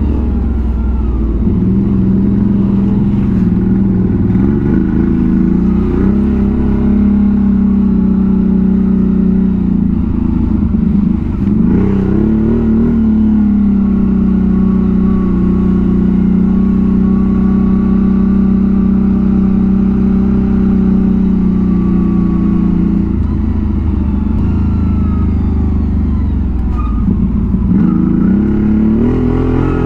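ATV engine running at steady revs under way, the revs dipping and climbing again a few times, about a third of the way in and near the end.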